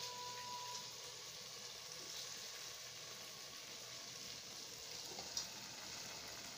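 Hot cooking oil sizzling steadily in an iron kadhai, with one light tap near the end.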